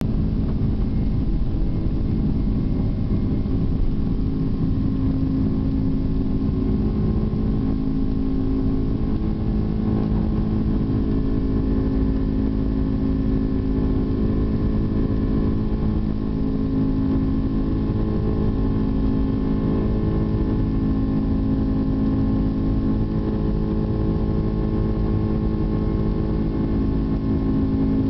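Airliner's jet engines at takeoff thrust, heard from inside the passenger cabin: a steady, loud drone with a low hum through the takeoff run and climb.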